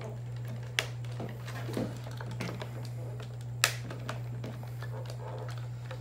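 Plastic tabs of a Shark Ion robot vacuum's front sensor cover snapping into place under finger pressure: a few sharp clicks, the loudest about three and a half seconds in, with light plastic handling between them, over a steady low hum.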